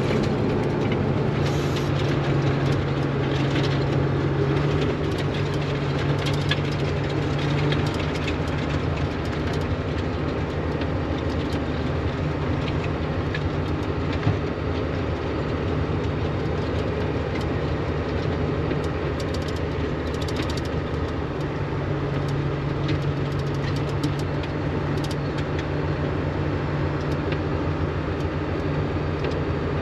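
Valmet tractor's diesel engine running steadily at working revs, driving a Tokvam snow blower through its power take-off. The engine's steady low note weakens about eight seconds in and comes back strongly near twenty-one seconds.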